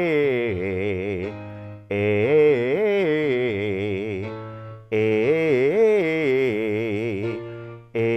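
A man singing a vocal exercise on an open 'ah' vowel over keyboard accompaniment: each phrase glides up and back down with quick wavy runs. The phrase repeats about every three seconds with short breaks between, over a steady low held note.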